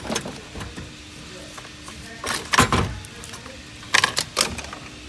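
A few hard clunks and scrapes from parts being handled in a car's engine bay, in two clusters about two and a half and four seconds in, over a faint steady hum.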